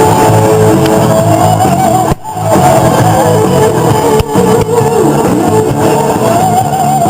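Loud rock music with guitar, dipping briefly about two seconds in.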